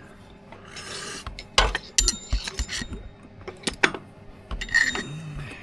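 A series of sharp, irregular knocks as a new gear shift shaft oil seal is driven in, struck through a nylon bush.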